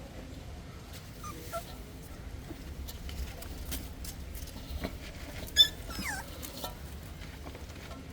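Puppy whimpering: a few faint squeaks, then a sharp high yelp about five and a half seconds in, followed by a whine that falls in pitch.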